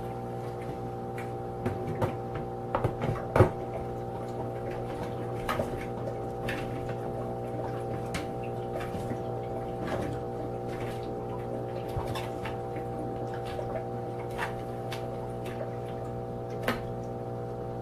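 Sunbeam humidifier running with a steady fan hum, with scattered clicks and knocks over it, the sharpest about three and a half seconds in.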